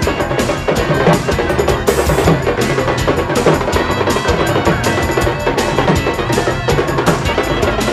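Loud music with a fast, steady drum beat.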